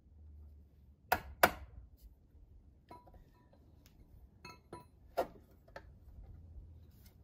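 Sharp metallic taps and clinks of a metal skeg guard being tapped and pressed onto a boat drive's broken skeg: two loud taps about a second in, then a few lighter clinks, some with a brief ring, the loudest of them about five seconds in.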